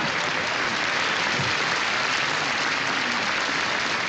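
A large audience applauding, a dense, steady clapping in response to a comedian's punchline.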